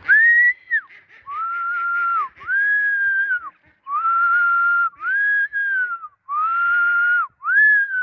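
A person whistling a run of about seven long, level notes, each sliding up at the start and dropping off at the end, calling the flock of turkeys and pigeons in to feed.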